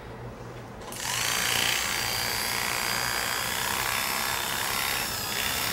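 Electric animal clippers switched on about a second in, then running with a steady buzz while shaving the belly fur of a cat.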